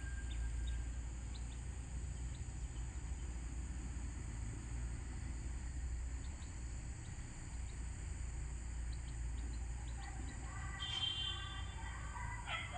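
Outdoor ambience: a steady low rumble like wind on the microphone and a constant high insect buzz, with scattered faint chirps. Birds call more clearly with short stacked notes from about ten seconds in.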